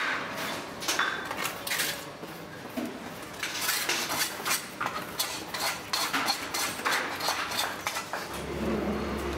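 Steel bricklaying trowel scraping and tapping mortar onto bricks, a busy run of sharp scrapes and clicks. Near the end a steady low hum comes in.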